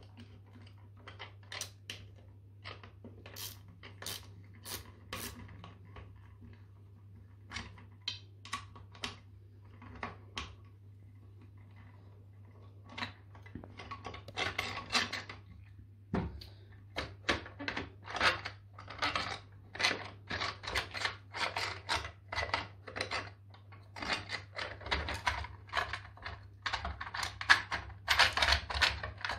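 Stainless steel bolts being worked out of a plastic water softener valve housing by hand: short metallic clicks and clinks of the bolts and a hand tool. They are scattered at first and come thick and fast from about halfway. A faint steady low hum runs underneath.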